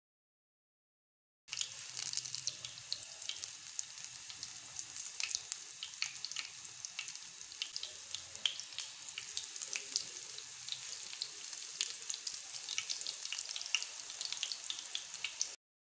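Batter-coated potato balls deep-frying in hot oil: a steady sizzle thick with quick crackles and pops. It starts about a second and a half in and cuts off suddenly just before the end.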